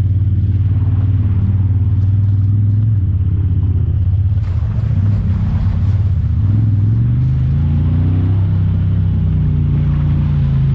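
Honda Talon 1000R side-by-side's parallel-twin engine running under way on a trail. The engine note drops about three seconds in and climbs again about seven seconds in, with a stretch of hissy noise over it about four to six seconds in.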